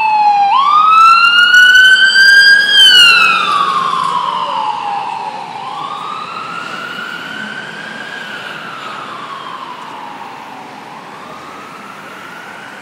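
Emergency vehicle siren wailing, slowly sweeping up and down in pitch. It is loudest in the first few seconds as the vehicle passes, then fades steadily as it drives away.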